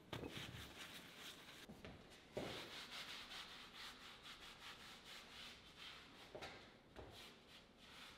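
A rag rubbing oil paint onto a canvas in a run of short, scrubbing strokes, one stronger stroke about two and a half seconds in.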